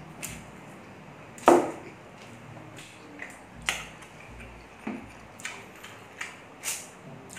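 Close-up eating sounds: a series of short, sharp smacks and clicks of chewing. The loudest knock comes about a second and a half in.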